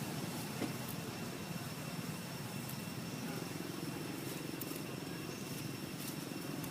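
A steady low rumble of background noise with a faint high steady whine over it, and one brief click about half a second in.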